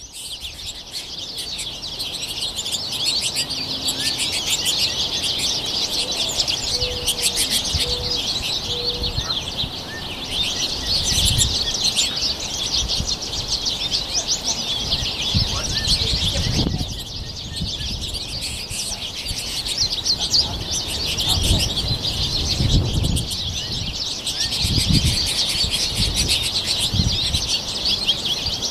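A large flock of American goldfinches twittering and chattering without pause, many high calls overlapping, with a few low rumbles now and then.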